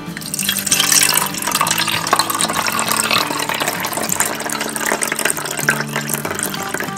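Water pouring steadily, starting suddenly, with soft guitar music underneath.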